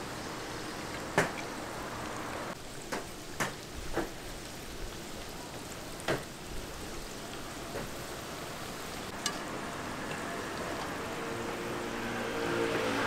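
Stuffed dough pastries deep-frying in a wide pan of hot oil, sizzling steadily, with a handful of sharp clicks of metal tongs against the pan and pastries. The sizzle grows louder near the end.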